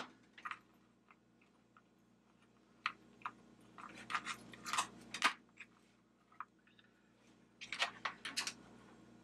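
Small hand tools and wire being handled on a workbench mat: scattered light clicks, taps and rustles in a few short clusters, the busiest from about four to five seconds in and again near the end.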